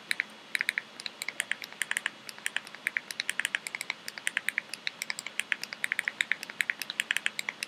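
Rapid, uneven clicking of keys as a search term is typed in, about eight to ten clicks a second.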